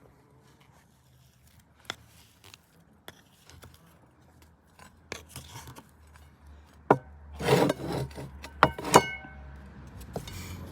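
Meat grinder and its parts being handled and worked: irregular clicks, knocks and scrapes. A faint low hum comes in about four seconds in, and a denser run of louder clacks and scraping falls in the last few seconds.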